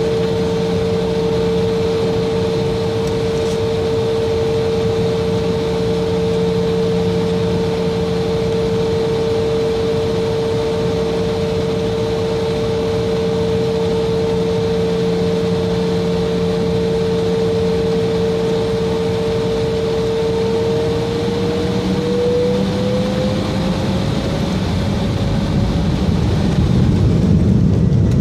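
Embraer E170's turbofan engines heard from inside the cabin, holding a steady whine at idle; about three-quarters of the way through the whine rises in pitch and the engines grow louder as they spool up for the takeoff roll.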